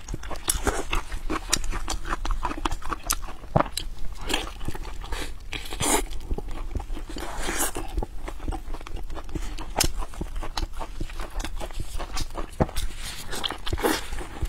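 Close-miked wet chewing and lip smacking of fatty braised pork belly eaten by hand, a rapid run of small mouth clicks with a few longer slurps about halfway through.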